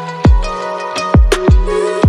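Background electronic music: sustained synth tones over three deep kick drums, each dropping in pitch.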